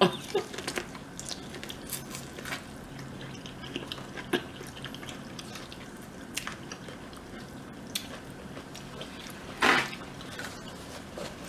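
Close-up eating sounds: scattered wet smacks and chewing from someone eating saucy boiled seafood, with one louder noisy smack near the end.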